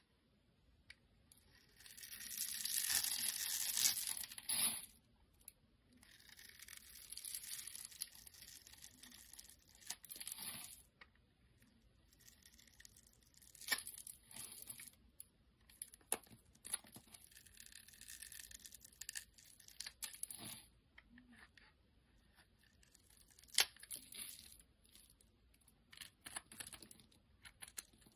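A metal blade scraping and shaving a bar of soap into crumbles and flakes, a string of crisp scraping strokes. The longest and loudest strokes come in the first ten seconds or so, followed by shorter strokes and sharp clicks.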